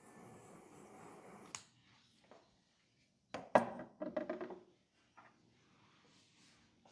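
Hands working on a head and neck during a massage: a soft rubbing hiss that ends in a click, then, about halfway through, a quick run of sharp taps on the skin.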